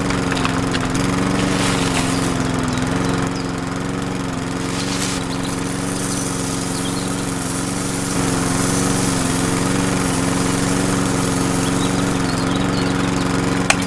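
Small electric motor driving a miniature wooden sunflower-seed thresher, running with a steady, even hum.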